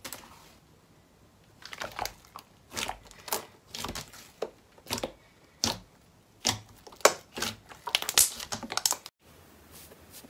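Glossy slime being pressed and kneaded by hand, giving an irregular run of sharp clicking pops as trapped air bursts out of it, thickest toward the end. It stops abruptly about nine seconds in, leaving only faint, softer sounds.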